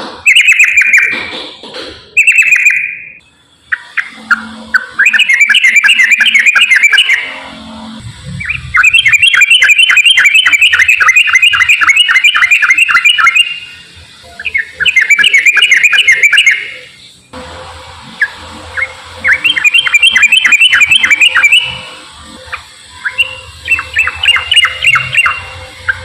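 Yellow-vented bulbul (trucukan) singing its fast, rolling 'ropel' chatter: long runs of rapidly repeated notes lasting several seconds each, broken by short pauses.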